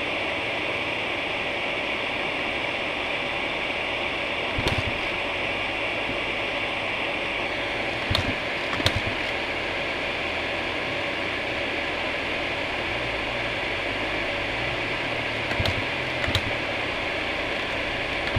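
Steady mechanical hum from a stopped KTM dirt bike, with a few short knocks scattered through it.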